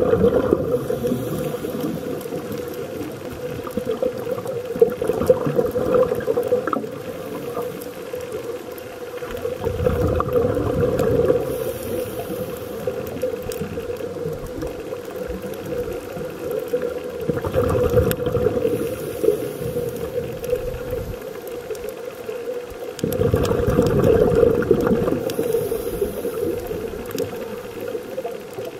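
Underwater sound of a scuba diver's breathing: exhaled bubbles rumble in bursts about every seven seconds, each followed by a short hiss, over a steady hum.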